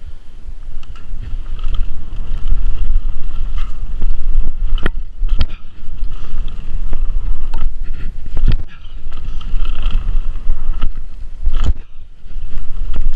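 Mountain bike ridden fast down a dirt trail with jumps: wind buffets the microphone over the sound of the tyres on dirt. There are sharp knocks and rattles from the bike over bumps and landings, the loudest about five, eight and a half and eleven and a half seconds in.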